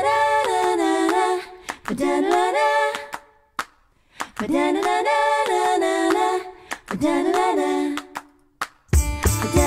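A cappella vocal music: short sung phrases with gaps between them and sharp clicks in the pauses. About nine seconds in, a full band with a heavy bass comes in under the voices.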